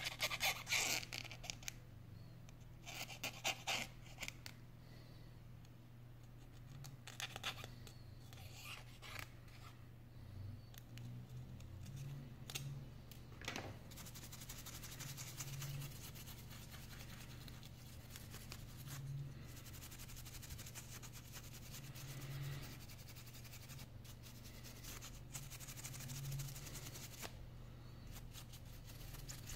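A thin tool clicks and scratches against the inside of an opened iPhone, loudest in the first few seconds. Then a small brush sweeps over the phone's battery and circuit board with a light scratchy rustle, over a faint steady low hum.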